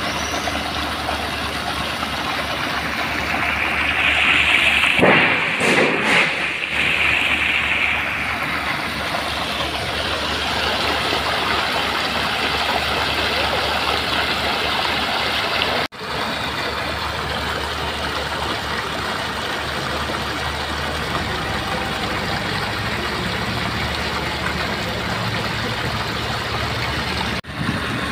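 Water from a drilling-rig cellar pump's discharge hose gushing into a concrete ditch, a steady rushing splash that swells louder for a few seconds about five seconds in. A steady engine hum runs underneath, clearer in the second half.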